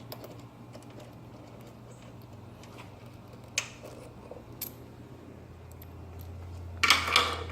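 Light metallic clicks and clinks of the fuel-tank mounting bolts being unscrewed and handled, with a sharper click about halfway and a louder clatter near the end.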